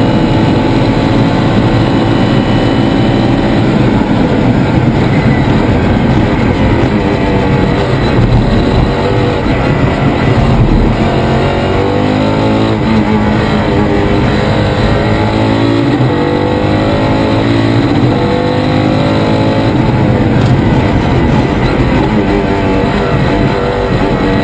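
Mosler GT3 race car's V8 engine heard from inside the cockpit at racing speed, running hard and steady at first, then its pitch sweeping down and up again several times through gear changes past the middle.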